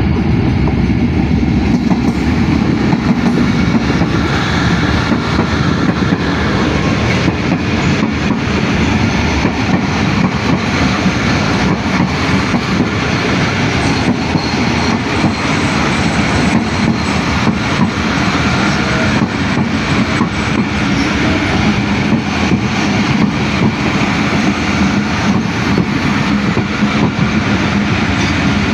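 Awam Express passenger train running steadily along the track. The wheels clatter over rail joints in a constant run of clicks, with a faint squeal from the wheels.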